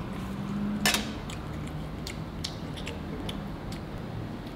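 Metal spoon and fork clinking against a ceramic plate while eating: one sharp clink about a second in, then a few lighter taps.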